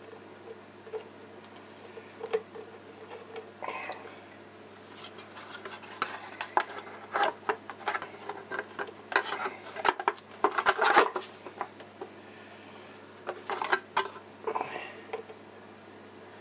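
Irregular clinks, taps and rattles of hard parts being handled as the change-gear end cover is fitted back onto a mini lathe, busiest in the middle.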